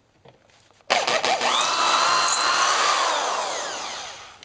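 Electric drill starting up about a second in with a rising whine, running while drilling out a stripped exhaust-bolt hole in a scooter engine case with the Time-Sert kit's drill bit, then slowing and winding down near the end.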